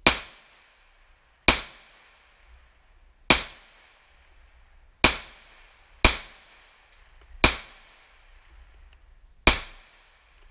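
Smith & Wesson M&P 2.0 semi-automatic pistol firing seven shots at an uneven pace, one to two seconds apart. Each shot is followed by a short echo off the metal-roofed shooting shelter.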